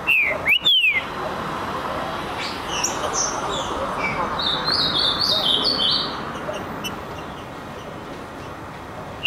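Green-winged saltator (trinca-ferro) calling: two loud whistles, each sliding downward, about half a second apart near the start. Softer chirps follow, with a quick run of high notes in the middle.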